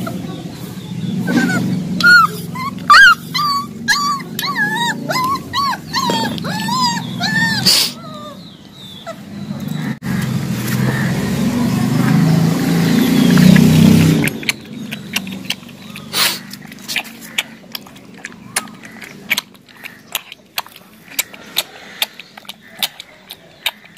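Puppy whimpering: a run of high, rising-and-falling whines over several seconds. After a few seconds of low rumbling, the puppy laps and eats wet gruel from a steel bowl with quick, rapid clicking sounds.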